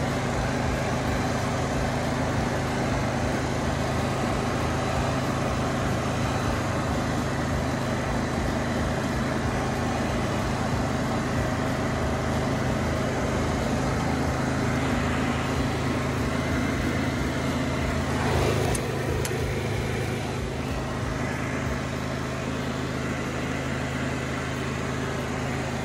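Grillo Climber 7.18 ride-on mower's engine running steadily under load as the machine climbs a steep slope. A few brief clicks about two-thirds of the way in.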